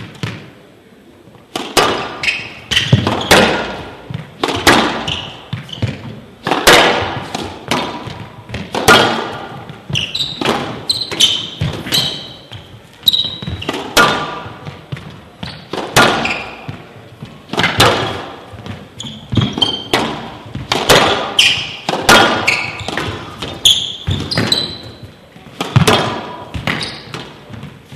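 A squash rally on a glass-walled court: sharp smacks of the ball off rackets, front wall and glass, about one a second, echoing in a large hall, starting after a short lull about two seconds in. Short high squeaks of shoes on the court floor come between the shots.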